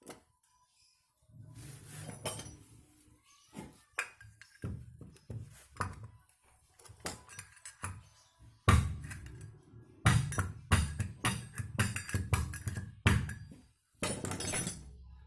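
Music with many short, sharp percussive hits over a low bass, getting louder about nine seconds in.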